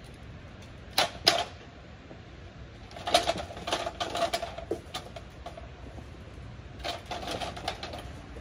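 Aluminium step ladder being handled and shifted, clicking and rattling: two sharp knocks about a second in, then runs of quick rattling clicks a little after three seconds in and again near seven seconds.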